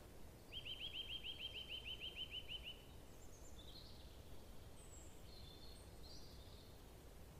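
A small songbird sings a rapid trill of evenly repeated notes, about eight a second, for about two seconds. A few faint, high chirps follow, over faint woodland background noise.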